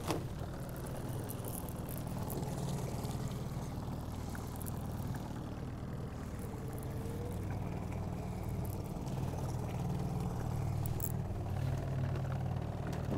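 Small outboard motor on a fishing boat running steadily at trolling speed: an even low hum, with a few faint clicks over it.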